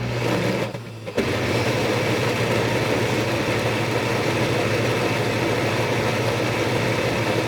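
Breville Bluicer blender motor running under heavy load through thick peanut butter at speed 3. It drops briefly about a second in, then picks back up and runs steadily.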